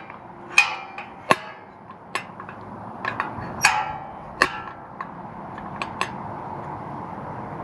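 Irregular light metallic taps and clicks, some with a short ring, as the phone knocks and scrapes against the inside of the BMW F30 340i's metal exhaust tip.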